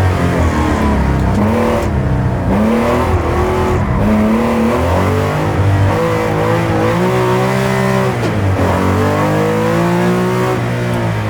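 Porsche 911 (930) air-cooled, turbocharged flat-six engine under hard load on a rally stage, heard from inside the cabin. The revs climb and drop sharply several times, about two, four and eight and a half seconds in, as it changes gear or comes off the throttle for corners.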